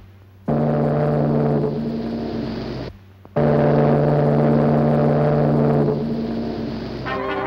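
Ocean liner's steam whistle blowing two long, deep blasts with a short break between them, the second longer and fading near the end.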